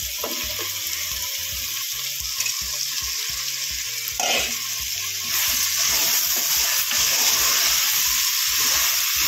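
Chopped vegetables sizzling in hot oil and tomato masala in a pressure cooker as they are tipped in and stirred with a wooden spatula. The sizzle gets louder about five seconds in.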